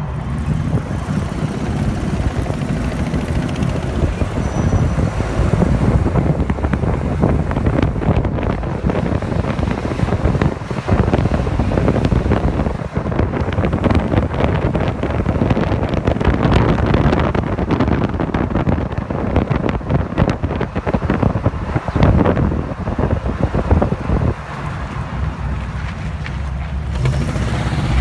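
Jeep CJ on the move, heard from inside the cab: the engine running under a rumble of road noise, with wind buffeting the microphone at the open window.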